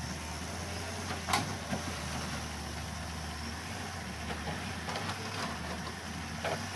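Halla 130 wheel excavator's diesel engine running steadily as the boom swings and lifts its bucket, with a sharp knock about a second in and a fainter one near the end.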